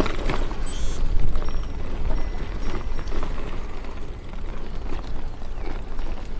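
Wind buffeting the microphone while a bicycle rolls over paving stones, with a light, irregular rattle running under the steady rumble.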